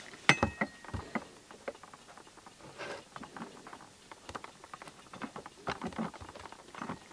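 Clicks and taps of a large steel vernier caliper being slid and closed onto a steel ball joint separator fork. The first click is the loudest and rings briefly like struck metal, followed by lighter, irregular ticks and scrapes.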